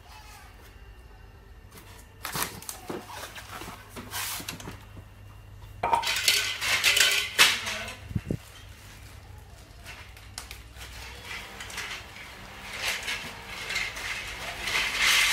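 Metal parts of a hand-push seed planter clinking and rattling as it is handled, in several bursts of clicks, the busiest and loudest about six to eight seconds in.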